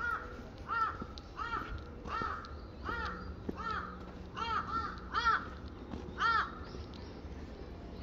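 A crow cawing repeatedly: about ten short caws, each rising then falling in pitch, spaced less than a second apart and stopping about three-quarters of the way through.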